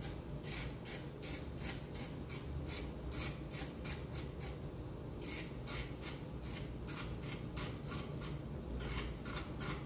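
Kitchen knife scraping the skin off a raw carrot in quick, even strokes, about three a second, pausing briefly a little before the middle and again near the end.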